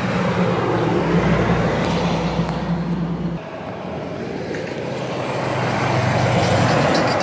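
A 1993 Peterbilt 379 log truck's diesel engine running as it drives past, together with tyre and road noise. Its engine note drops away abruptly about three and a half seconds in. Another vehicle then passes, its sound rising toward the end.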